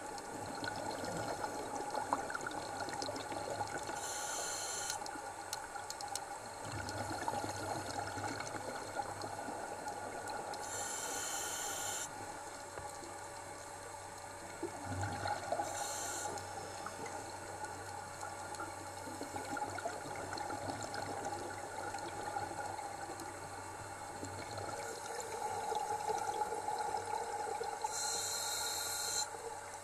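Underwater scuba-diving sound: a steady wash of water and bubbles, broken four times by a short hiss, typical of a diver breathing through a scuba regulator and exhaling bubbles.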